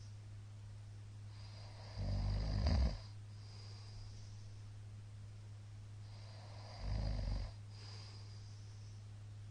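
A middle-aged man snoring in his sleep: two loud snores about five seconds apart, each under a second long, with softer breathing between them.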